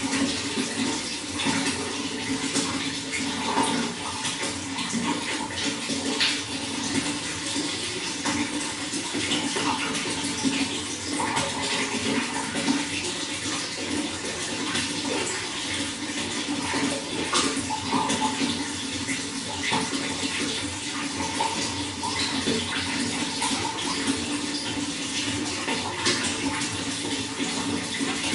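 Running water flowing steadily, with small splashes and gurgles throughout.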